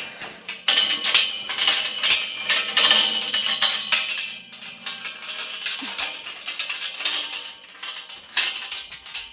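Steel chain rattling and clinking against a tubular steel farm gate as it is wrapped around the post to fasten the gate shut. The jingling comes in quick, irregular bursts, busiest in the first four seconds, then sparser with a few more clinks near the end.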